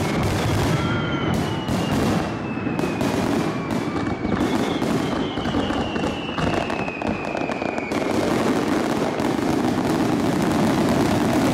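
Fireworks display: aerial shells bursting and showers of crackling stars, a dense, continuous run of sharp bangs and crackles.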